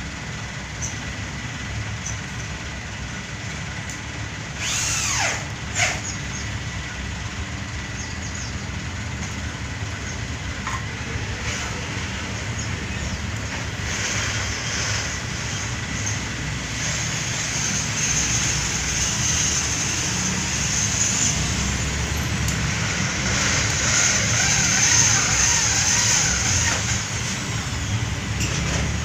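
Metal lathe running steadily while its cutting tool machines an engine cylinder head, with a higher cutting hiss growing stronger in the second half. A brief falling squeal about five seconds in.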